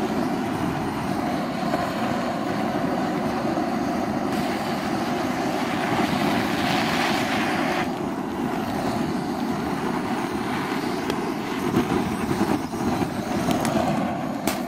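Butane jet torch flame roaring steadily as it burns a motherboard, with a few sharp pops near the end, the first of them a capacitor bursting.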